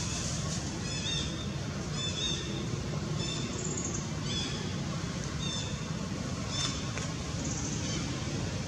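Short, high chirping calls from an animal, repeated about once a second, over a steady low rumble.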